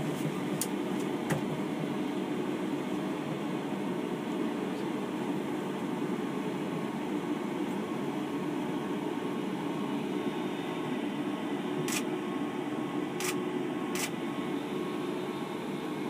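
Steady low hum and hiss inside the driver's cab of a Gautrain electric train as it creeps slowly along a station platform, with a few sharp clicks, three of them close together near the end.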